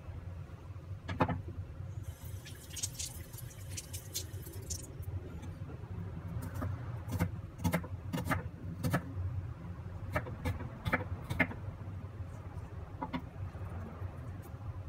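Kitchen knife cutting shallots on a bamboo cutting board: irregular sharp knocks of the blade on the wood, several a second in places, with a papery crackle between about two and five seconds in, over a steady low hum.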